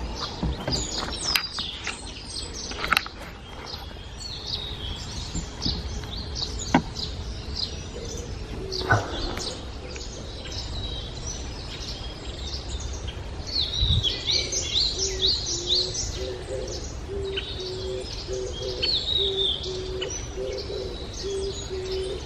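Wild birds singing and chirping, with high twittering calls throughout and a few sharp knocks in the first half. From about halfway through, a low, evenly repeated cooing call joins in.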